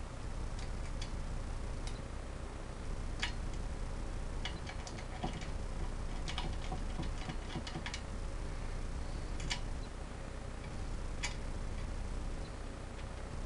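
Scattered, irregular small clicks and taps of hardware being handled: washers, a nut and bolt being fitted by hand under a small air compressor mounted on an air tank. A steady low hum runs underneath.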